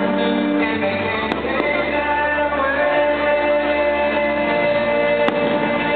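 Patriotic song with singing, played over stadium loudspeakers as a fireworks soundtrack. Two faint firework pops come through it, about a second in and near the end.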